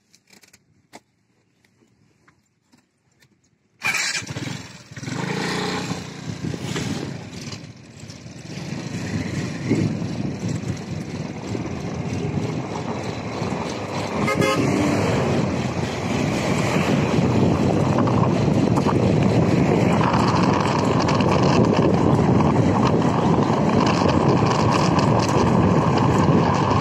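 Road traffic: motor vehicles running past with a horn honking. It cuts in suddenly about four seconds in after near silence and grows louder towards the end.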